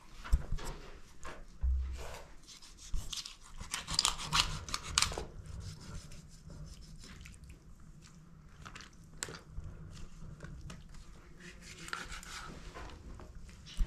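Scattered knocks and clicks, with a low thump near the start and a gritty crunching scrape from about three to five seconds in.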